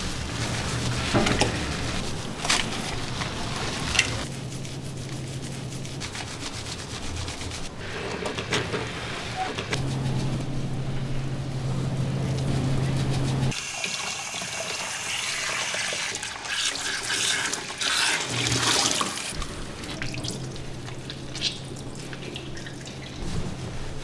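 Running water splashing in a pet-grooming bath tub as a cat is washed.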